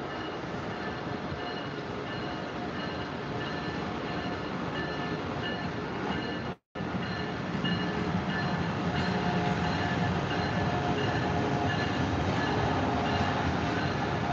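An Amtrak Acela Express trainset running past on the adjacent tracks: steady rail rumble and wheel noise, louder and heavier after a short break about six and a half seconds in. A faint high tone pulses evenly underneath.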